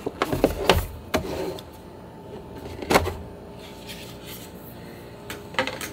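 Lens packaging being handled and set down on a desk: a few taps and knocks in the first second, a louder knock about three seconds in, then light clicks near the end.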